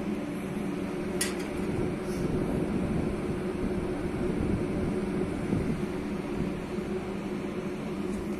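Steady low drone of running machinery on a crane barge, with a few held low tones, and a single sharp click about a second in.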